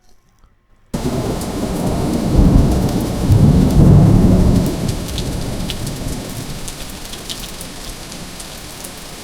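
AI-generated thunderstorm sound effect made from the text prompt "thunderstorm with rain". Steady rain hiss starts suddenly about a second in, with thunder rumbling loudest a second or two later, then easing back to rain.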